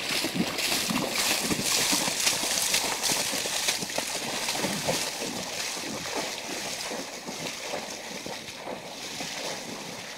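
Repeated splashing and sloshing of shallow river water, loudest in the first half and fading toward the end, as a hooked salmon thrashes near the surface and a person wades fast through the water toward it.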